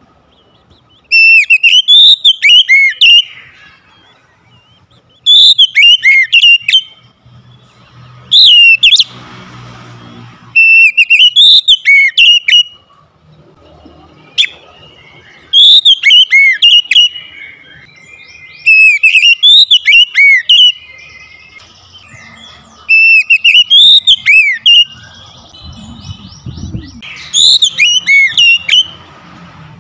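Oriental magpie-robin singing: loud phrases of fast, rising and falling whistled notes, about eight phrases, each a couple of seconds long with short pauses between.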